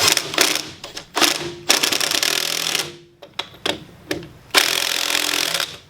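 Impact wrench running in several short bursts of about a second each, a rapid hammering with a steady whine under it, as wheel lug nuts are run on.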